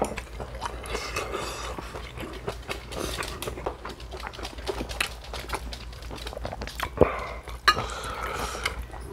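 Close-miked chewing of food, with many small crackles and clicks from chopsticks and the lettuce wrap being put together. Two sharper clicks stand out about seven seconds in and just after.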